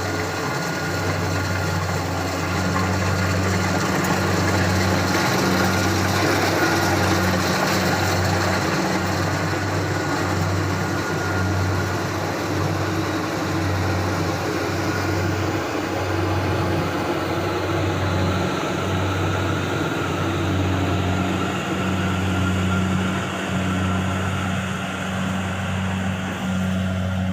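Kubota Harvest King combine harvester running steadily while harvesting rice: a low engine hum under a broad, even rush of machinery noise.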